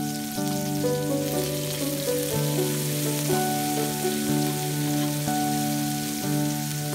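Background music with a slow melody of held notes, over a soft sizzle of shallots and green tomatoes sautéing in oil in a wok.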